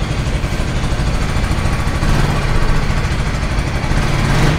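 KTM Duke 250's single-cylinder engine running at idle through its stock exhaust, a steady low rumble that gets a little louder about two seconds in.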